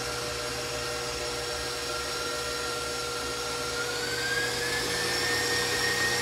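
Electric stand mixer running with a steady motor whine, its pitch rising about four seconds in as the speed is turned up. It is whipping homemade marshmallow icing.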